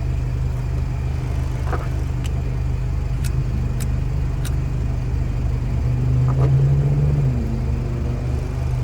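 Mazda BT-50 turbo-diesel engine running with a steady low pulsing drone, growing a little louder for about a second around six to seven seconds in.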